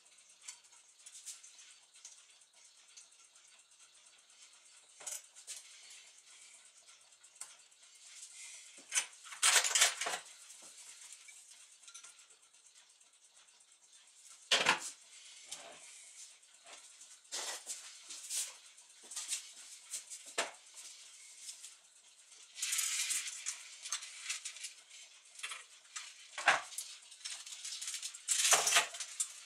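Brass parts of a Gustav Becker longcase clock movement handled during disassembly: scattered metallic clicks and clinks as pieces are taken off and set down, with a few longer clattering rattles in the second half.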